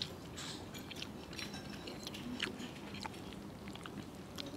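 A person eating close to the microphone: chewing, with a spoon and fork making irregular small clicks and scrapes against a plate.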